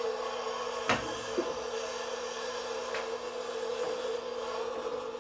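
Clausing lathe's electric drive motor running with a steady hum while the chuck stands still, with a sharp click about a second in and a lighter one about three seconds in.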